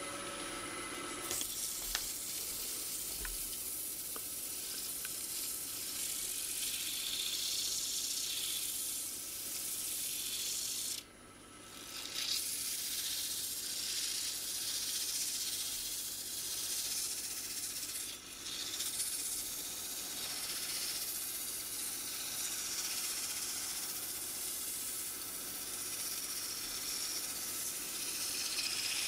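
Abrasive paper pressed against a yew vase spinning on a wood lathe, giving a steady sanding hiss over the lathe's faint hum. The hiss starts about a second in and breaks off briefly twice, about eleven seconds in and again around eighteen seconds.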